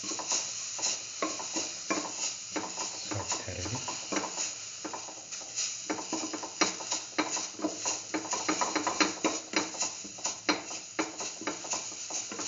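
Dried fenugreek leaves being stirred and sautéed in a hot stainless steel pan: a utensil scraping and tapping against the pan's metal bottom in many quick, irregular strokes, over a light sizzle.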